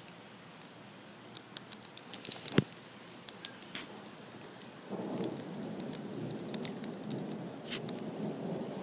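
Heavy thunderstorm rain pouring and pattering, with scattered sharp drop clicks and one loud tap about two and a half seconds in. From about halfway a louder rumble of thunder joins the rain.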